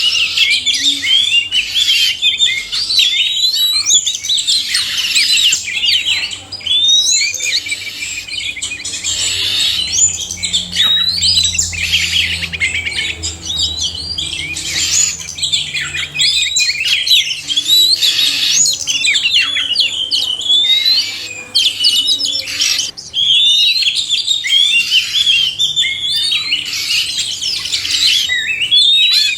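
Oriental magpie-robins (kacer), males and females together, singing a continuous chorus of overlapping whistled phrases and chirps, many notes sweeping upward.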